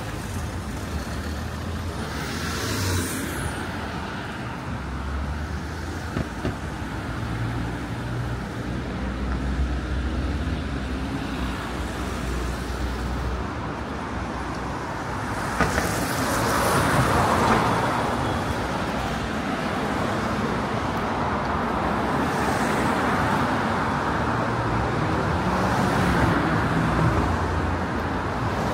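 City street traffic: motor vehicles passing with engine hum and tyre noise, the loudest one passing about halfway through.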